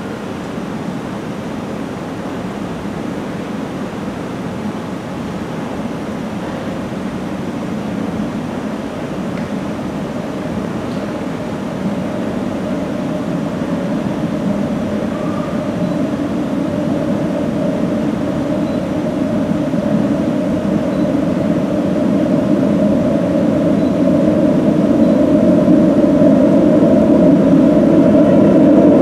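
Rumble of a pair of London Underground battery-electric locomotives approaching through the tube tunnel, growing steadily louder, with a low hum that strengthens as they near.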